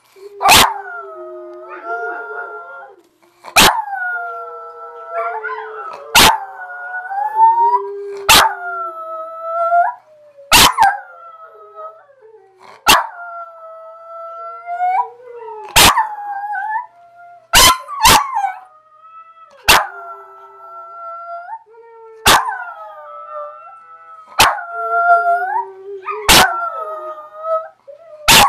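Small dog howling along with another dog: long, wavering howls, two voices overlapping and sliding up and down in pitch. Sharp, loud clicks cut in every two seconds or so.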